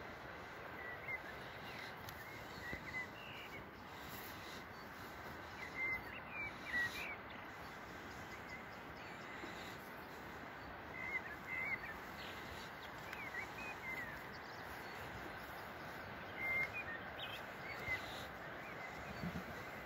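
Small birds chirping in short, scattered calls over a steady outdoor hiss.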